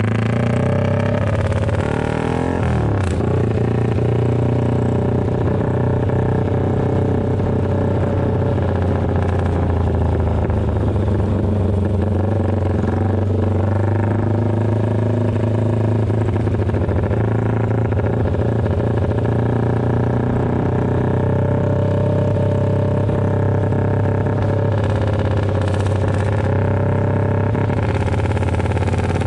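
Yamaha FZ150i (Vixion) 150 cc single-cylinder engine on the move, running through a very loud aftermarket GP racing exhaust. The note holds fairly steady, with one brief change in pitch about two to three seconds in.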